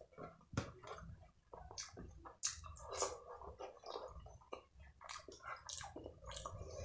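Close-miked wet eating sounds: fingers squishing and gathering saucy fried rice and chilli paneer on a plastic tray, mixed with chewing. Irregular sticky squelches and smacking clicks follow one another throughout.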